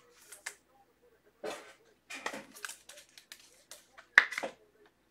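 Trading card packs and cards being handled: irregular rustling and crinkling in short bursts, with a sharp click about four seconds in.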